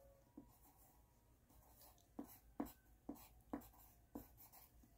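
Pencil writing on a slip of paper: faint scratching strokes, sparse at first, then a run of sharper strokes about two a second in the second half.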